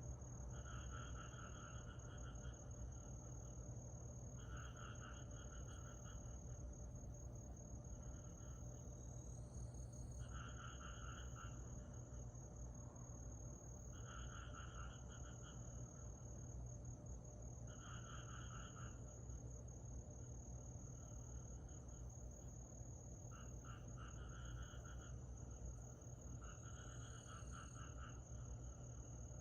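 Summer-night insects: a steady high-pitched trill runs throughout, and a lower pulsed call of about a second repeats every three to four seconds, over a low steady rumble.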